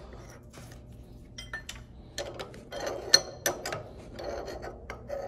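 Small metal clicks and clinks as an edge finder is fitted into a collet in a milling machine's spindle and the collet nut is tightened with a hook spanner, with one sharp click about three seconds in.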